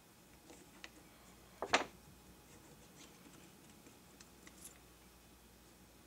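Light metallic clicks from a Kimber 1911 pistol's parts being handled during disassembly around the barrel bushing and recoil spring, with one sharper clack a little under two seconds in and a few faint ticks later.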